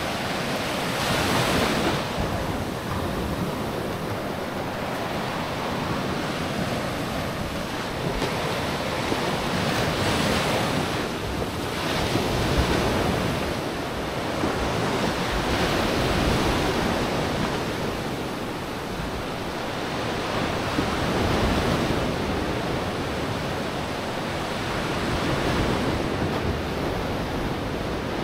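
Sea waves breaking and washing up on a sandy beach, swelling and ebbing every few seconds, with wind rumbling on the microphone.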